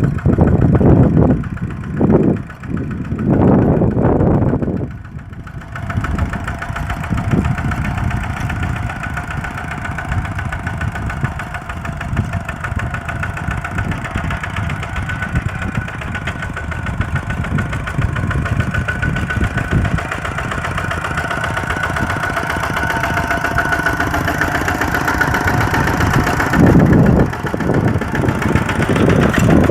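Kubota RT120 single-cylinder diesel tractor engine running steadily. The first few seconds and a stretch near the end are louder and uneven.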